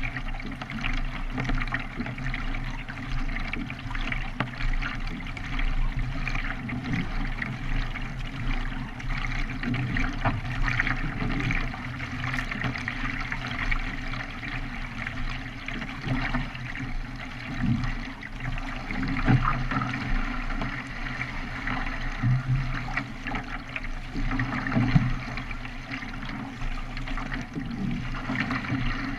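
Water splashing and trickling around a K1 racing kayak as it is paddled, a steady wash with irregular sharper splashes.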